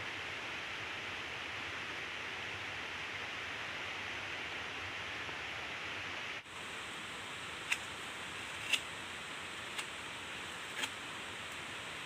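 Steady rushing outdoor noise, changing abruptly about six seconds in, followed by four short sharp clicks or snaps about a second apart.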